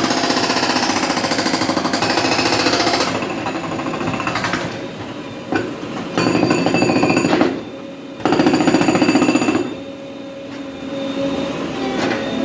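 JCB 3DX backhoe loader working the road surface: a fast, rattling hammering that comes in loud bursts of one to three seconds, with quieter machine running between them.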